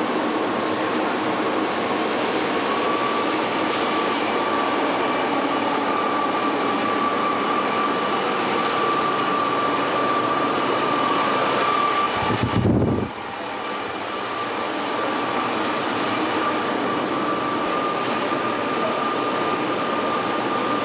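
Steady mechanical hum and hiss of factory machinery with a constant high whine, broken about twelve seconds in by a short low rumble, after which the noise briefly drops quieter.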